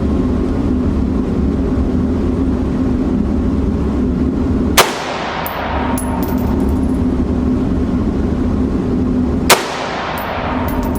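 Two gunshots from a firearm about five seconds apart, each a sharp crack followed by a ringing echo and a few faint clicks, over a steady background hum.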